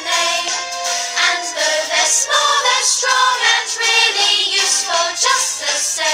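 A song: voices singing over instrumental backing.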